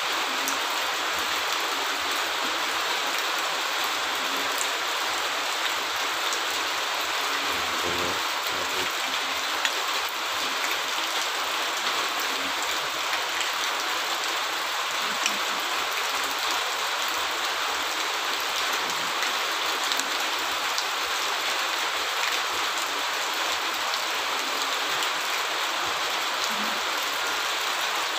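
A steady, even hiss like rain, with a few faint clicks and one dull knock.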